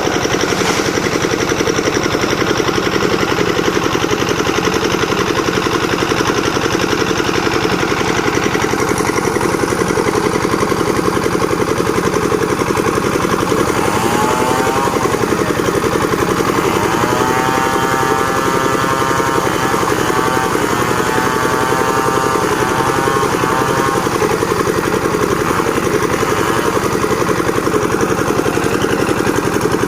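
Engine-driven board-making machine running steadily, with a whine that shifts up and down in pitch for several seconds about halfway through.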